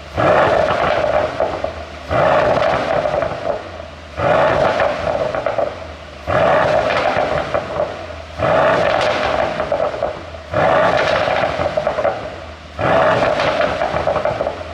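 Mercedes-AMG E63 4Matic+ twin-turbo V8 revved in short blips seven times, about every two seconds, each rev followed by a run of exhaust pops and crackles on the overrun from a pop-and-crackle tune.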